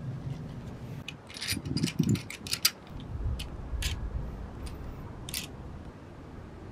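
Clicks and metallic clinks of a beach umbrella being set up in a metal clamp-on mount with wing screws: a quick run of sharp clicks a little over a second in, then a few single clicks.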